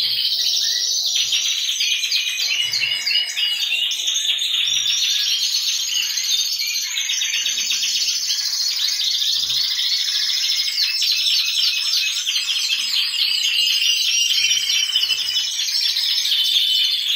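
Many caged canaries singing and chirping at once: a dense, continuous chorus of high trills and tweets overlapping without a break.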